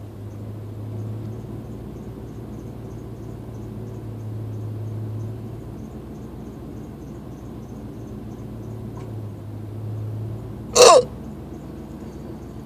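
A man hiccuping once, a short, loud hic near the end, over a steady low hum.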